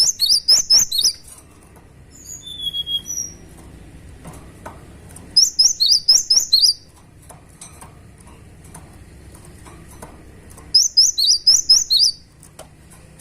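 Cinereous tit (gelatik batu) singing: three loud bursts of rapid, high repeated chirps, each about a second long and about five seconds apart. A softer, lower whistled phrase comes between the first two bursts.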